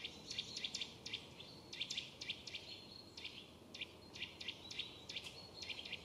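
Small songbirds calling faintly: a quick run of short, high chirps, several a second, with now and then a thin, high whistle held for a moment.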